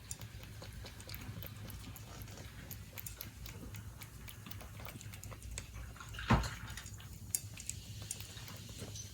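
Siberian cat eating its dinner: a run of small crunching clicks as it chews, with one louder thump a little past six seconds.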